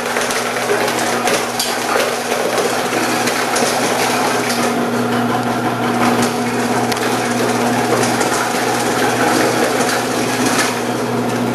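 Omcan HLC 300 electric vegetable cutter running with a steady motor hum while its spinning slicing disc crunches through carrots fed down the side chute.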